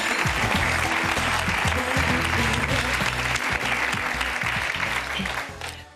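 Studio audience applauding over music; the applause and music fade out just before the end.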